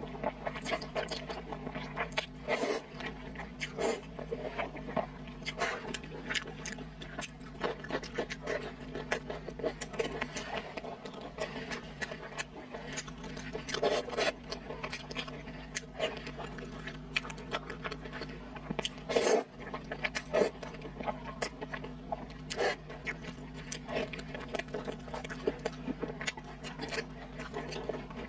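Close-miked slurping of glass noodles (sweet-potato vermicelli) and wet chewing of braised pork, a continuous string of irregular sucking and smacking sounds with a few louder slurps now and then.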